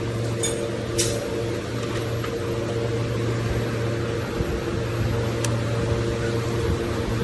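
A steady low mechanical hum with a few light clicks: a sharp click about a second in and another about five seconds later.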